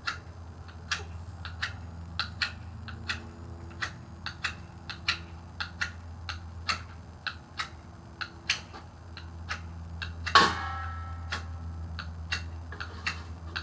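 Ferrocerium rod struck again and again with the spine of a Habilis Bushtool knife to throw sparks onto tinder: short sharp scrapes, roughly two a second and unevenly spaced. About ten seconds in comes one longer, louder scrape.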